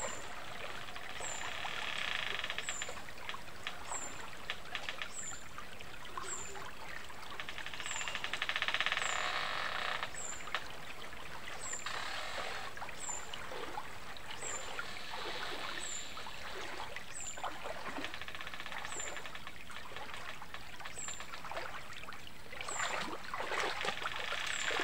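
River water running and splashing, with a short high-pitched chirp repeating about once a second and several spells of harsh, buzzy rasping a couple of seconds long; the splashing grows louder near the end.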